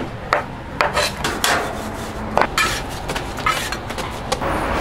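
Kitchen knife knocking against a wooden board as it cuts a log of hotteok dough into portions, a series of sharp knocks, followed by short scrapes and clinks of a metal spatula on a flat-top griddle.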